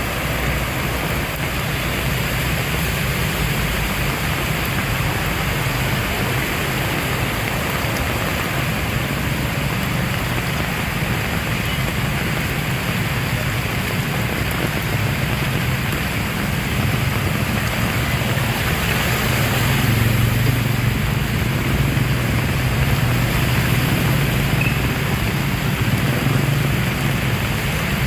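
Heavy rain falling in a steady, dense hiss. About two-thirds of the way in, a low rumble joins it and the sound gets slightly louder.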